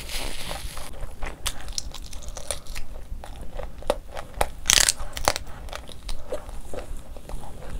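Close-miked biting and chewing of fried prawns: irregular crunches and mouth clicks, with the loudest crunch about five seconds in.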